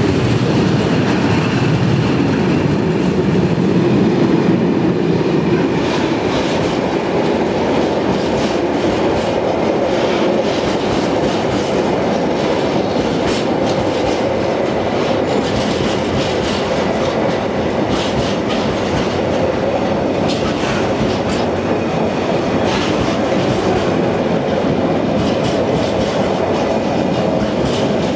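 Freight train wagons rolling past close by: a steady, loud rumble of steel wheels on rail with irregular clicks and clatter as the wheels cross rail joints. In the later part the wagons are empty container flat wagons.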